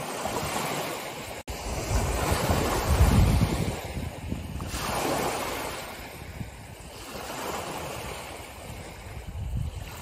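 Small sea waves breaking and washing up a stony beach in slow surges, the biggest about three seconds in, with wind rumbling on the microphone. A split-second dropout in the sound about one and a half seconds in.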